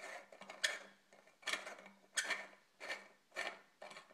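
A light bulb's metal screw base grating in a lamp socket as it is twisted in by hand, about seven short scraping strokes roughly one every half second, each a turn of the bulb.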